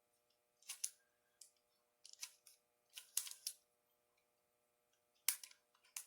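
Pyraminx puzzle being turned by hand: a few short plastic clacks at irregular intervals, some coming in quick pairs.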